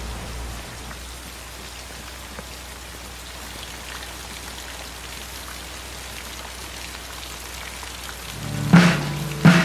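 Steady rain falling. Near the end come two loud, short pitched blasts.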